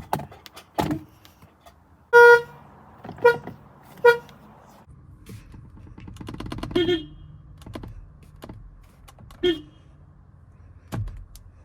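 Car horn sounded in short toots: one blast about two seconds in, two quick toots after it, and two more lower-pitched toots later. Sharp clicks or thumps come near the start and near the end.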